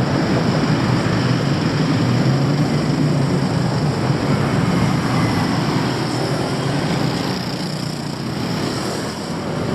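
Steady road traffic noise: a constant hum of engines and tyres, easing slightly near the end.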